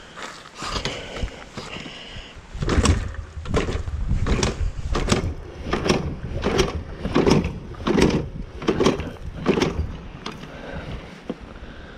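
Yamaha dirt bike being started, with about ten rhythmic pulses a little under a second apart from about three seconds in to near the end.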